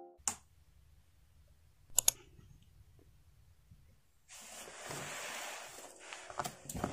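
Backpack being handled: a sharp click, then a quick double click about two seconds in. From about four seconds on comes a steady rustling hiss, with a few small knocks near the end.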